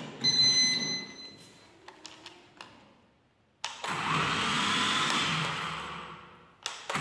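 E88 mini drone's four propeller motors spinning up on the ground with a buzzing whir about three and a half seconds in, running for about three seconds and fading as they slow, then whirring up again near the end. A short high beep and a few light clicks come near the start.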